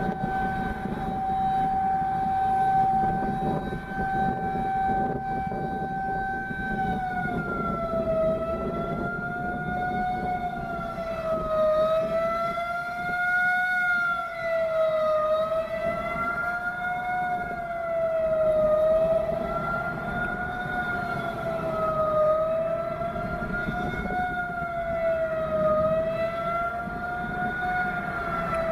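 Outdoor warning siren sounding: it holds one steady tone for the first several seconds, then wavers slowly up and down in pitch, over a low background rumble.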